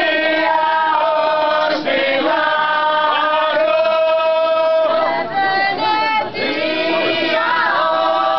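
Group of vallja dancers singing together in long held notes, several voices at once, with short breaks between phrases.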